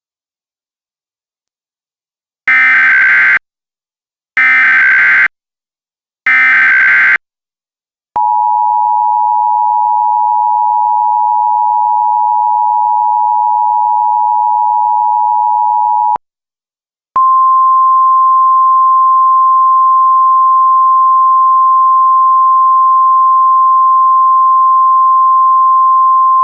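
Emergency Alert System alert opening: three short data bursts of the SAME header, each about a second long, then the two-tone attention signal held steady for about eight seconds. After a brief gap comes a single steady, slightly higher alert tone.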